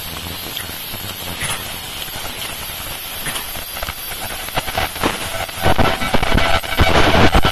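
Automatic three-layer disposable face mask making machine running with a steady mechanical hiss. About two-thirds of the way in it grows louder with a fast run of clicks and knocks.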